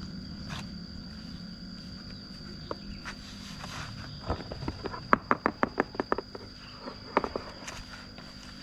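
Hands kneading and pressing a flour-and-oil bait dough in a plastic tray, giving a quick run of sharp slapping taps, about five a second, in the middle and a few more near the end. A steady high insect drone runs underneath.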